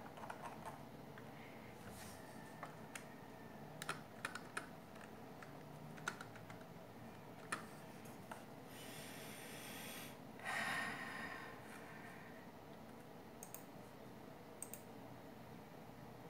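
Scattered clicks of a computer keyboard and mouse, with a short, louder rush of breath-like noise about ten seconds in.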